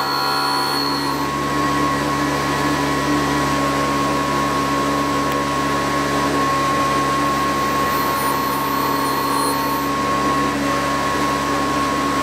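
D-bit tool and cutter grinder motor running steadily with its cup wheel spinning as an end mill is fed across it, grinding the secondary relief on the end cutting edges. A faint high whine comes in near the start and again about eight seconds in.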